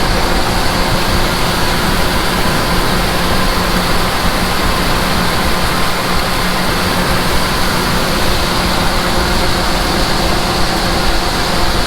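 Large diesel engine of harvest machinery running steadily under load, a constant hum with a dense rush of mechanical and air noise and no change in speed.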